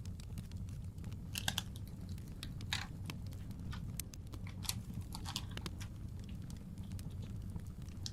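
Fireplace fire crackling, with scattered sharp pops over a steady low rumble. A few louder crisp crunches stand out, about four, in the first two-thirds.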